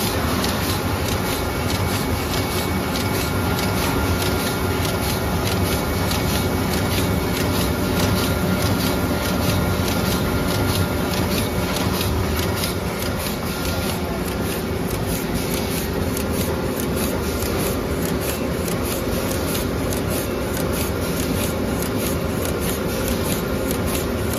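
Automatic pre-coating film laminating machine running steadily: a continuous mechanical hum from its rollers and drive, with a fast, even ticking over it.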